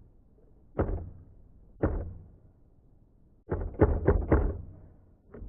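Remington Noiseless No. 6 typewriter keys being struck: a keystroke about a second in, another a second later, then a quick run of about six and one more near the end. The escapement is still skipping, leaving double spaces between letters.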